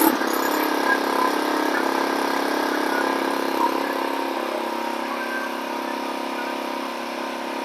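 Harbor Freight Predator small engine on a McLane reel mower running steadily just after being started, with an even, unchanging tone that eases slightly toward the end.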